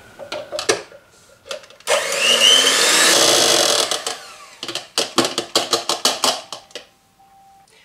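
Electric hand mixer beating egg whites stiff in a plastic beaker, its motor whine rising as it speeds up and running for about three seconds. Then a quick run of sharp clicks and knocks, about five a second.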